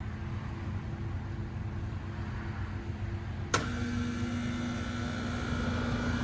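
Trane XR13 heat pump starting: a low background hum, then a sharp click about three and a half seconds in as the contactor pulls in, and the Climatuff reciprocating compressor comes on with a louder, steady hum.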